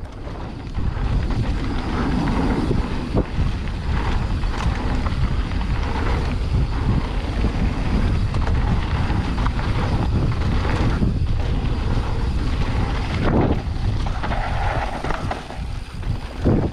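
Wind buffeting the microphone while a mountain bike is ridden on a dirt trail, with tyre and trail noise and a few sharp knocks from bumps.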